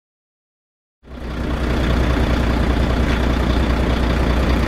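Heavy truck engine idling steadily, a sound effect that comes in quickly about a second in after dead silence and holds a strong low hum.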